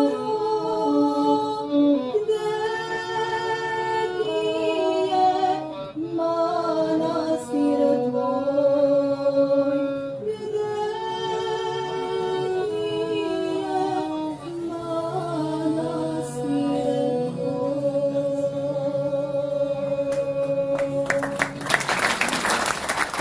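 A group of voices singing a slow song together in harmony, unaccompanied, with long held notes. Applause breaks out near the end.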